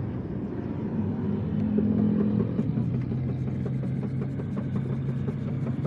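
A motor running with a steady low hum, with light clicking over it in the second half.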